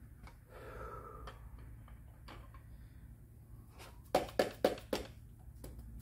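Hammer striking the end of a long screwdriver wedged into a cast-iron Pontiac 350 V8 block: four quick, sharp taps about four a second, starting a little past halfway. The blows are knocking a cap loose during the teardown.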